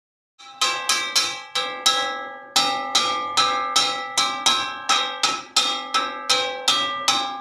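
A metal wok (wajan) being struck again and again, each hit ringing on with a clangy, bell-like metallic tone. The strikes begin about half a second in and come about three a second, with a brief gap near two seconds.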